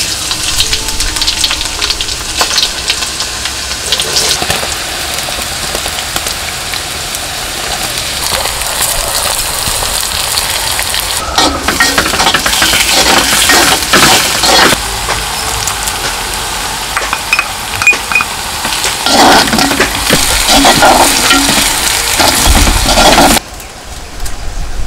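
Hot oil sizzling in an unglazed clay pot as ingredients are dropped in and stirred with a wooden spoon, the spoon scraping the pot in louder stretches. The sizzling drops away abruptly near the end.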